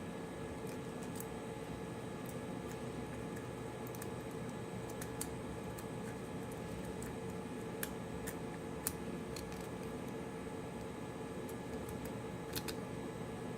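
Steady background hum and hiss, with a few scattered small clicks and taps of tools and small parts during a phone teardown.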